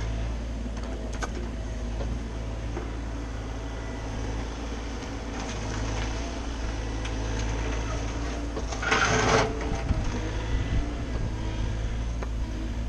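Bobcat mini-excavator's diesel engine running steadily with a low hum, with a short rushing noise about nine seconds in.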